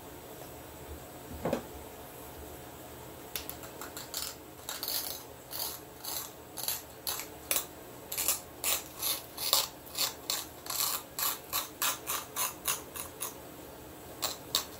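Copper-tipped pressure flaker snapping small flakes off the edge of a knapped stone blade: a long run of sharp clicks, two to three a second, most regular in the second half. One duller knock comes about a second and a half in.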